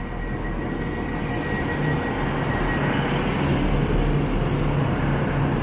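Class 156 diesel multiple unit, coupled to a Class 150, running into the platform past the camera: the underfloor diesel engines give a low, steady rumble that grows louder over the carriages passing, along with wheel-and-rail noise.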